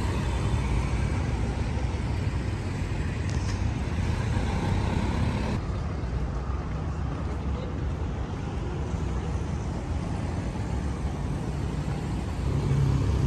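Steady road traffic: a continuous low rumble of passing cars.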